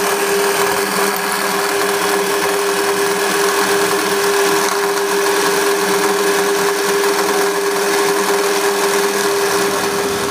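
Vertical milling machine running under power feed, a 45-degree V end mill cutting a chamfer along the edge of a metal plate: a steady machine sound with one constant tone over an even noise.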